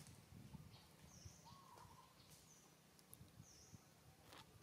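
Near silence outdoors, with a few short, high bird chirps spaced about a second apart and one faint click near the end.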